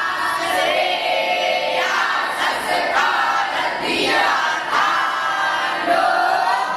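A group of voices chanting together in unison, in phrases with brief breaks between them.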